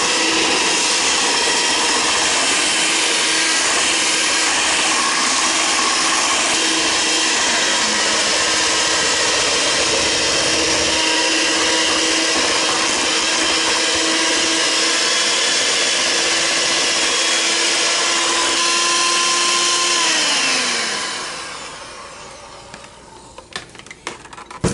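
Electric mixer beating cream cheese frosting, its motor running with a loud, steady whine. About 21 seconds in it is switched off and the whine falls in pitch as the motor winds down, followed by a few light knocks near the end.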